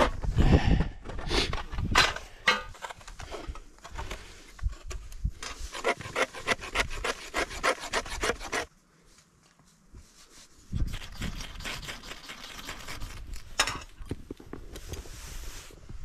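A knife blade shaving and scraping a stick of wood into tinder: runs of quick, short rasping strokes, broken by a pause of about two seconds just before the middle.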